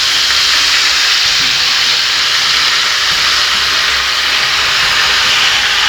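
Deep oil with raw banana chips in it, hissing and sizzling loudly and steadily as salted spice water poured in flashes to steam, making the oil foam up.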